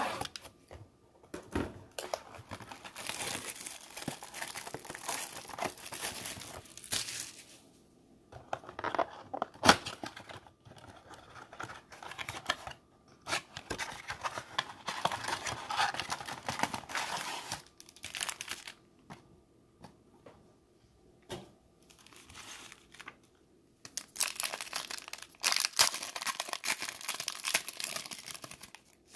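Plastic wrapping and trading-card packs being torn open and crinkled, in three long spells of rustling with short handling knocks between them, as a blaster box of football cards is unwrapped and its packs opened.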